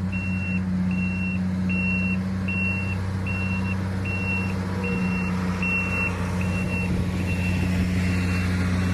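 Diesel engine of a heavy earthmoving machine running steadily, with a backup alarm beeping at an even pace, about one beep every three-quarters of a second.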